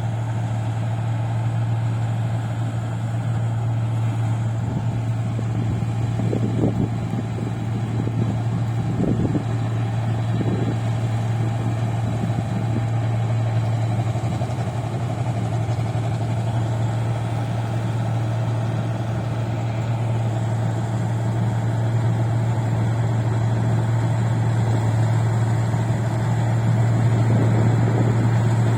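Rice combine harvester running steadily, a constant low engine hum over machinery noise, with a few brief louder bumps partway through.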